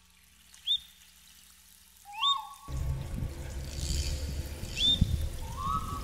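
Short whistled, bird-like chirps that slide up and then hold, repeating about every second and a half in the background track. From about three seconds in there is a low room rumble, with a soft thump near five seconds.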